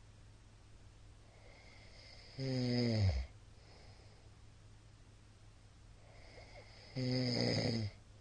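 A middle-aged man snoring in his sleep: two loud snores about four and a half seconds apart, each lasting under a second and falling in pitch as it ends, with quiet breathing between. The snoring is heavy, partly from drinking alcohol.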